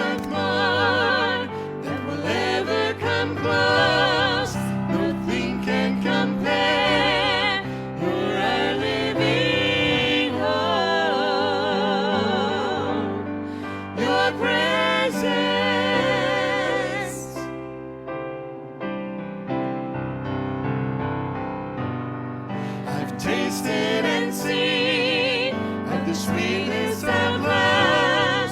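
Gospel worship song: a voice singing long held notes with strong vibrato over sustained keyboard accompaniment, with a brief instrumental lull about two-thirds of the way through before the singing returns.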